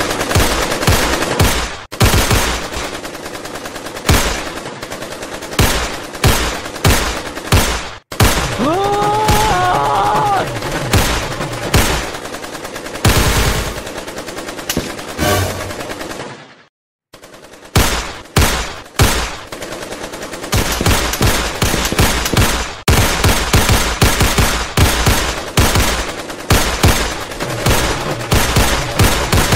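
Gunfire sound effects: rifles and pistols firing in long, rapid bursts, one shot after another, with a break of about a second a little past halfway. A voice briefly cries out about a third of the way in.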